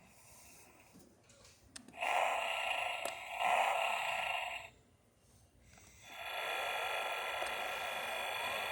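Electronic sound effects from a 'The Batman' Batmobile toy's small speaker: two bursts of a thin, noisy, raspy sound, each about two and a half seconds long, with a short gap between them. A sharp click comes just before the first burst.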